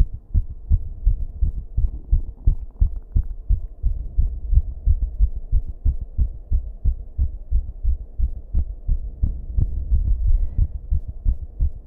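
A human heartbeat recorded close up: a fast, uneven run of low thumps, several a second, over a faint steady electrical buzz from the room.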